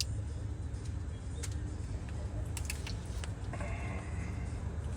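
A few scattered light clicks of hand tools and parts being handled during alternator removal, over a steady low rumble.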